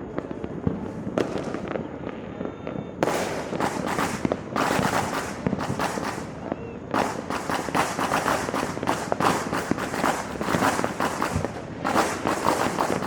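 Many fireworks and firecrackers going off at once in rapid, overlapping crackling bangs. They are sparser at first and become dense from about three seconds in, with a short lull about two-thirds of the way through.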